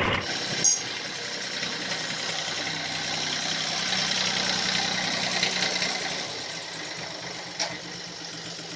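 Farm tractor's diesel engine running steadily as the tractor drives along, growing fainter over the last few seconds. Two short sharp clicks, one under a second in and one near the end.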